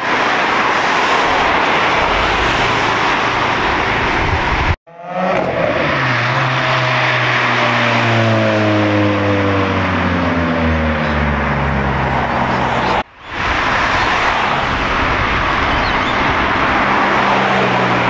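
Sports car engines pulling away hard, in three cut-together clips. In the middle clip a Lotus Exige's engine note falls slowly in pitch as it drives off. In the last clip a Ferrari F430's V8 accelerates away.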